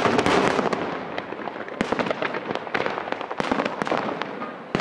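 Aerial fireworks display: a loud bang right at the start, then a dense run of shell bursts and crackling stars, with many separate sharp bangs over the next few seconds.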